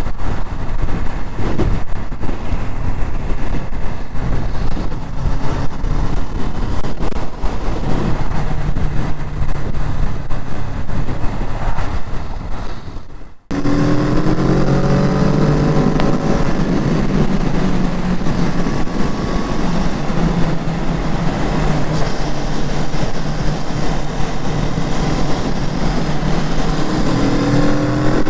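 Kawasaki Z650 parallel-twin motorcycle under way. For the first half a rushing wind noise covers the engine. After a sudden cut about halfway through, the engine comes through clearly, its pitch rising and falling through throttle and gear changes.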